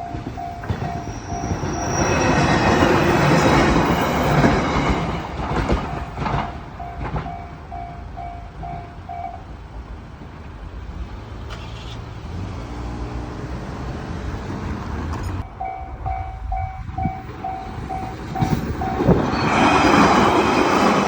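Japanese level-crossing warning bell ringing in a steady kan-kan pattern of about two strokes a second. A train runs over the crossing, with loud rushes of wheel and running noise about two seconds in and again near the end. The bell stops around the middle and starts again about fifteen seconds in.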